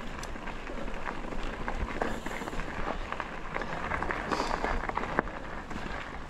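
Mountain bike rolling over a rocky dirt trail: tyres crunching on loose gravel and stones, with many small irregular clicks and rattles from the bike, over a steady low rumble.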